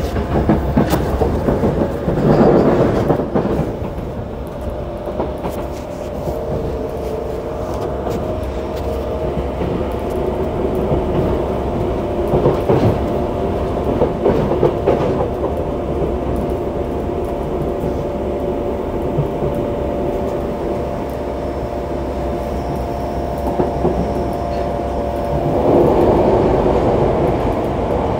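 Yokohama Municipal Subway 3000A series train running between stations, heard from inside the passenger car. Steady motor and inverter tones from its Mitsubishi GTO-VVVF drive sound over continuous wheel-and-rail rumble, which swells louder three times.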